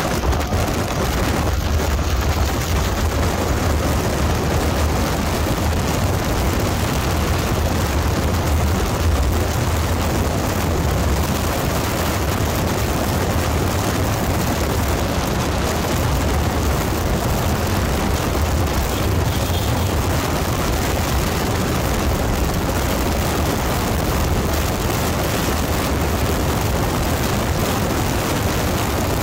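Sport motorcycle running at steady highway speed in high gear: a low, constant engine drone under a rush of wind over the microphone.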